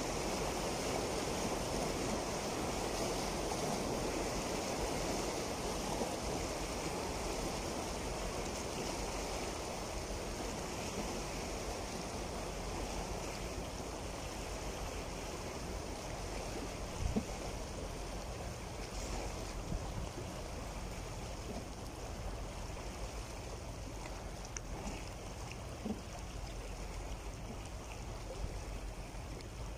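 Small sea waves washing and breaking over a rocky shoreline, a steady rushing wash that eases slightly over time, with a couple of brief knocks in the second half.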